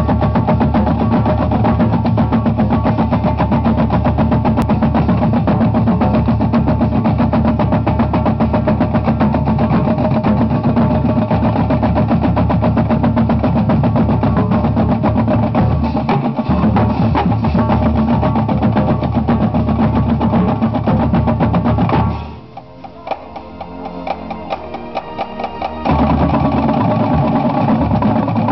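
Marching drumline of snare drums and other marching drums playing a fast, dense cadence together. About three-quarters of the way in it drops to a soft passage for about four seconds, then comes back in loud.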